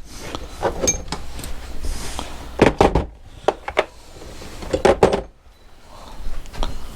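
Knocks and clinks of motorcycle engine parts being handled on a workbench, a scattered series with the loudest about two and a half and five seconds in.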